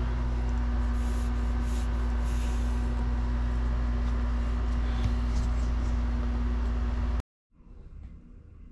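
A steady low rumbling hum with a constant tone in it, with a few soft breathy exhales over it as smoke is blown out. About seven seconds in it cuts off abruptly to a much quieter room.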